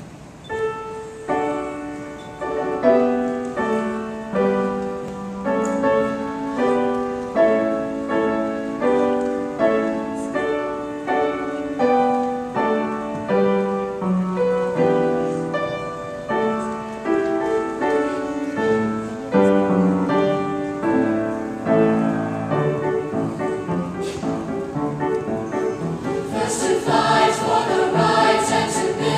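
Piano playing an introduction of struck, fading notes, then a youth choir begins singing over it near the end.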